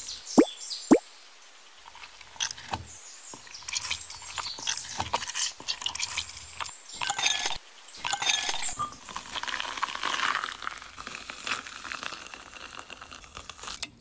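Ice cubes clinking and clattering into a glass jar, with a metal spoon knocking against the glass. Two quick sounds that slide down in pitch, about half a second and a second in, are the loudest part.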